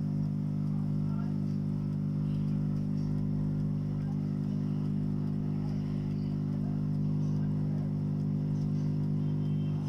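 Hot air rework station's blower running with a steady, even hum while its nozzle heats a phone's circuit board.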